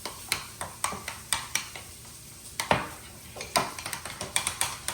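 A fork clinking and scraping against a bowl while mixing, in irregular sharp taps a few times a second, with the loudest knocks a little past halfway and a quick run of taps near the end.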